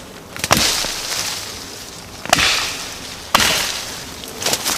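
Three strokes of a felling axe chopping into a branch of a felled tree, each sharp strike followed by a brief rustle that dies away, with a few lighter knocks near the end.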